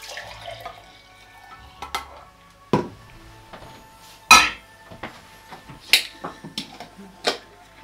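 Milk poured from a saucepan into a glass French press, then a saucepan and utensils clattering with several sharp knocks, the loudest about four seconds in.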